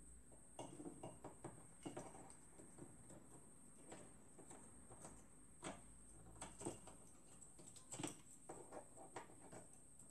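Faint, scattered clicks and light knocks of plastic and metal fuser parts being handled as a guide plate is fitted onto a Xerox 3370 fuser unit, a few of them louder. A faint steady high tone runs underneath.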